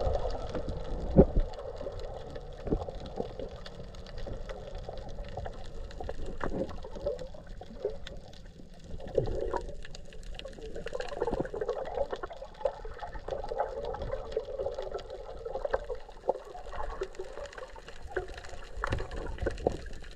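Muffled underwater sound of water moving around a submerged camera beside a small boat's hull, with scattered clicks and knocks; the sharpest knock comes about a second in.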